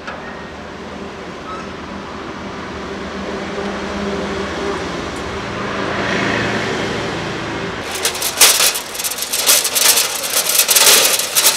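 A motor vehicle engine runs steadily, swelling a little toward the middle. About eight seconds in it gives way to loud, rapid metallic clattering and scraping from a steel truck bumper being moved over stony ground.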